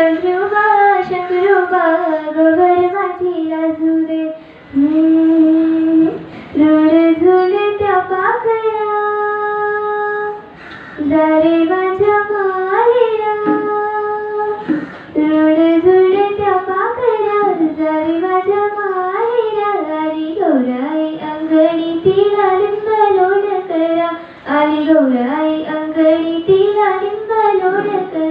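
A young girl singing a Marathi folk song solo and unaccompanied, in long melodic phrases with short breaks for breath between them.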